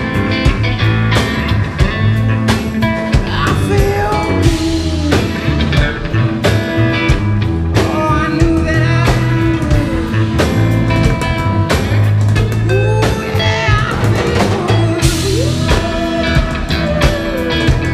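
Live blues-rock band playing: electric guitar and bass guitar over a drum kit, with gliding melodic lines above.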